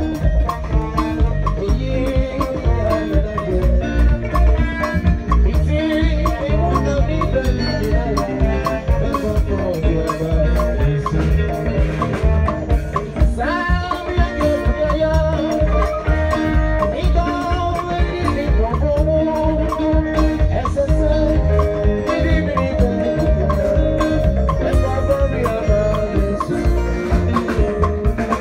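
Live band playing an upbeat gospel groove, with heavy bass, drums and a melodic lead line running throughout.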